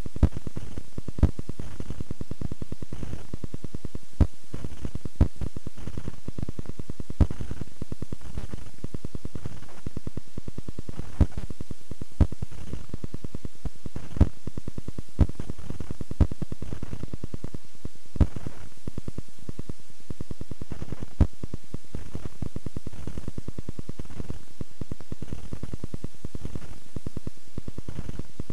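Steady crackling static hiss, with a sharp click every second or so through much of it.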